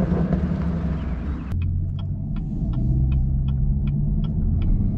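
Camaro 2SS's V8 idling with a steady low hum. About a second and a half in, a turn-signal indicator starts ticking evenly, close to three clicks a second, over the idle.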